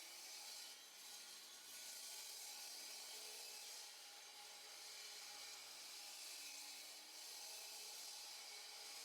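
Faint, steady hiss of a saw cutting a concrete slab, dipping briefly about a second in and again about seven seconds in.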